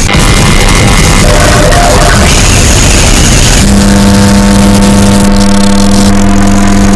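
Mock Emergency Alert System alarm audio, blown out and heavily distorted at full volume. A harsh, noisy stretch gives way about halfway through to a steady low droning tone that holds for about four seconds.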